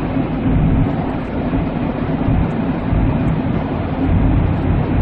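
Steady low engine and road noise inside the cabin of a Jeep Wrangler with a 2.8-litre four-cylinder turbodiesel, cruising at road speed.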